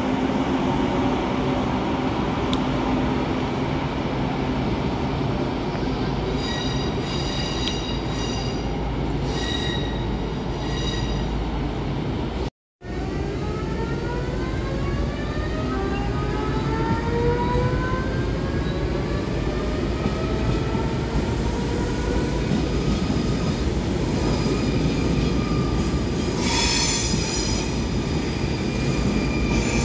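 Electric train at a station: a steady rumble with high wheel squeal, then, after a brief dropout about twelve seconds in, several whining tones climbing steadily in pitch as the train's traction motors speed up.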